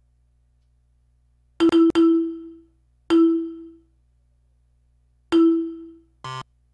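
Computer alert chimes from earthquake early-warning monitoring software: a bell-like tone struck three times in quick succession, then twice more a second or two apart, each ringing briefly and dying away, followed by a short buzzy blip near the end.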